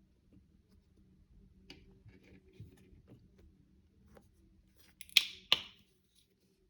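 Clear slime being worked with acrylic paint: faint sticky clicks and crackles, then two loud, short wet squelches about five seconds in.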